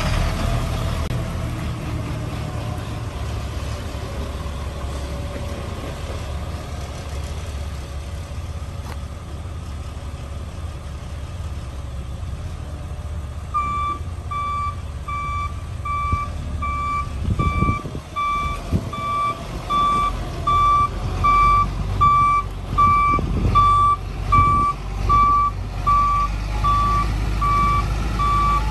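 Caterpillar 3126 six-cylinder diesel engine of a GMC C7500 truck running steadily. About halfway through, a back-up alarm starts beeping at a steady beat, about one and a half beeps a second, over the engine: the truck has been put in reverse.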